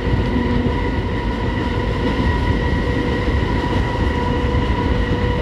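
Cab sound of a 3600 hp EMD RL class diesel-electric locomotive in dynamic braking, holding a heavy train's speed down a steep grade. A steady, even howl from the dynamic brake sits over the locomotive's heavy low rumble.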